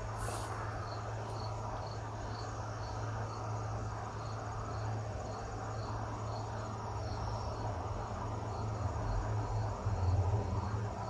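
Cricket chirping at an even pace of about two chirps a second, over a steady low hum that swells briefly near the end.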